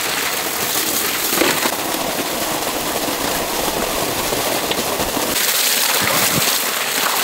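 Steady rush of rinse water pouring and splashing out of a large aluminium vessel onto wet ground as crabs are washed.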